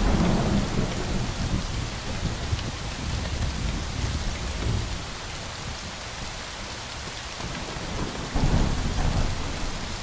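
Heavy rain pouring down on a paved street, with deep rolls of thunder rumbling at the start and again about eight seconds in.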